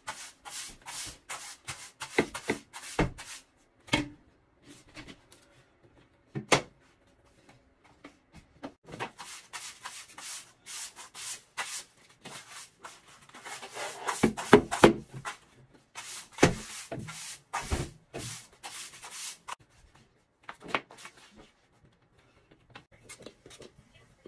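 Broom bristles sweeping a bathroom floor in short, irregular scratchy strokes, with a few sharp knocks in between.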